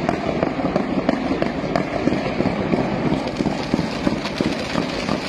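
Fireworks crackling: a dense, continuous run of rapid small pops with no single big bang standing out.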